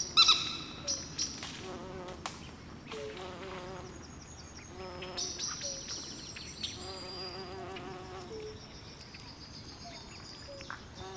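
Night swamp chorus: frogs calling in short, wavering low croaks and trills, over insects and higher chirps. The loudest is a sharp high call just after the start.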